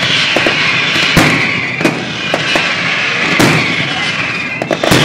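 Daytime fireworks going off: a string of sharp bangs a second or so apart, with smaller pops between them and a cluster of bangs near the end, over a continuous crackling hiss.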